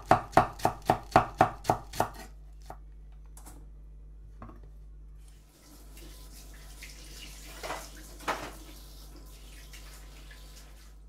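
Chef's knife finely shredding cabbage on a bamboo cutting board: quick, even chops, about four a second, that stop about two seconds in. Then quiet room tone with two faint soft knocks.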